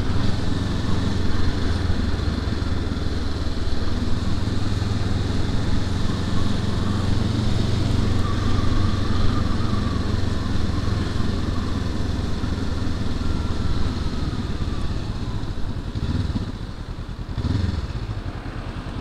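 Honda CL500's 500cc parallel-twin engine running steadily as the motorcycle is ridden, over road and wind noise. Near the end the engine note eases off and shifts briefly.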